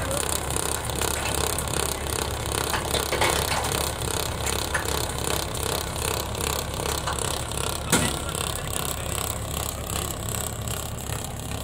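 Tractor-drawn trenching machine at work in sandy soil: the tractor engine runs steadily under load beneath a continuous mechanical rattling and clattering from the trencher. One sharp knock stands out about eight seconds in.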